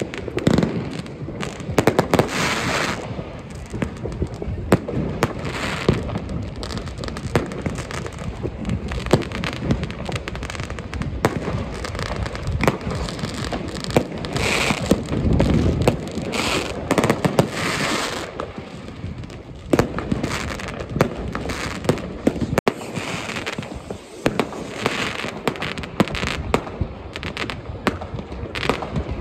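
Massed New Year's Eve fireworks, with rockets, firework batteries and firecrackers set off by many people at once: a dense, overlapping run of bangs, pops and crackling with no pause.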